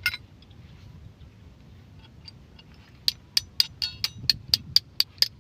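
Hand ratchet wrench clicking in a rapid, even series, about four clicks a second, starting about three seconds in. A single sharp click right at the start.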